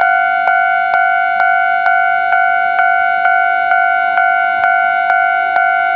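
Japanese railway level-crossing alarm bell sounding: an electronic ding struck about twice a second, each stroke fading before the next, warning that a train is approaching.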